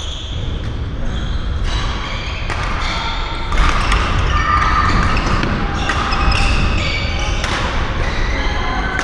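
Badminton rally sounds in a reverberant sports hall: a string of sharp, irregularly spaced racket hits on the shuttlecock, mixed with short squeaks of court shoes on the floor.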